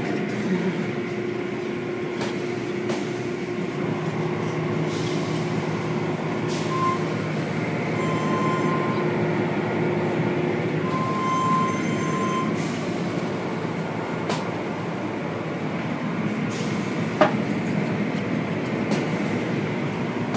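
Automatic car wash running: a steady machinery hum and water spray as soft-cloth brush strips sweep over a car. A few short high beeps come about a third of the way in and again just past the middle, and one sharp knock comes near the end.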